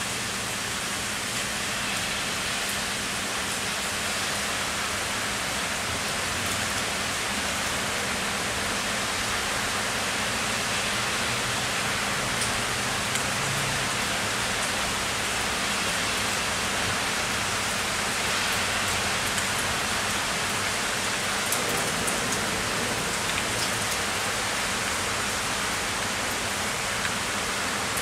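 Heavy summer rain falling steadily, a dense even hiss of rain on surfaces, with a few faint sharper drop ticks.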